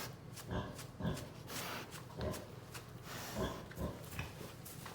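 Pigs grunting: a series of short, low grunts at irregular intervals.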